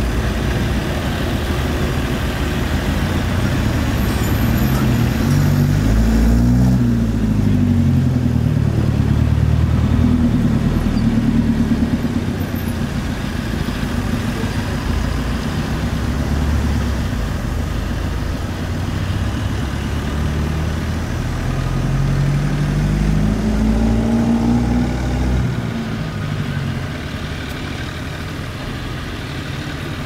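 Diesel farm tractor working a flooded paddy field, its engine running continuously under load. The engine note rises and falls twice as the load changes, then settles lower and a little quieter near the end.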